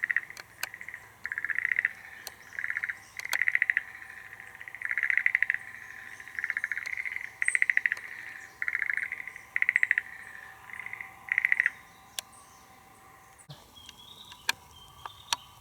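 Schlegel's green tree frogs calling from their burrows in the soil: short rattling trills of rapid pulses, one after another, about a dozen in all, stopping about twelve seconds in. Sharp clicks from the camcorder's zoom lever are scattered through it, the loudest shortly after the calls stop.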